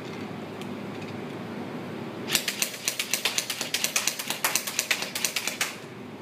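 CYMA CM030 electric airsoft pistol, a Glock 18C replica firing 6 mm BBs, shooting a rapid, uneven string of sharp shots, several a second. The shots start about two seconds in and stop shortly before the end.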